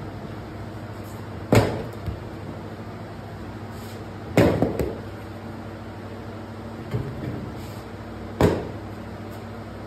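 Hot metal bread loaf tins knocking down onto a stone floor as they are unloaded from a bakery rack oven: about four sharp metallic knocks a few seconds apart, the second one clattering briefly. A steady machine hum runs underneath.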